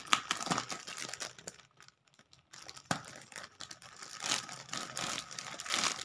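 Plastic courier mailer bag crinkling and tearing as it is pulled open by hand. The rustling stops for under a second about two seconds in, a sharp click follows, then the crinkling picks up again and grows busier.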